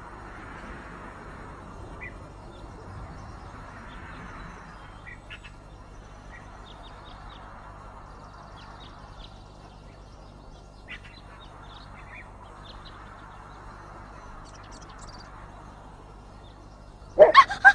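Faint outdoor ambience: scattered short bird chirps over a soft hiss that swells and fades and a low steady hum. In the last half second a person's voice breaks in loudly.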